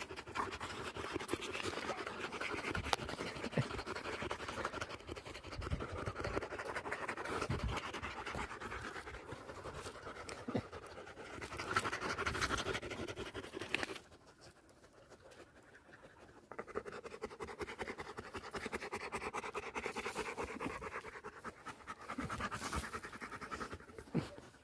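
A Labrador–Maremmano cross dog panting close to the microphone. The panting stops for about two seconds a little past the middle, then starts again.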